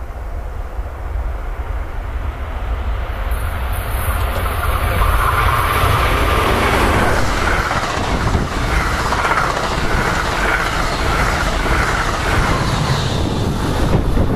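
NJ Transit commuter train of bilevel coaches passing close at speed, wheels rolling on the rails. It grows louder over the first few seconds as it approaches, then holds a steady loud rush.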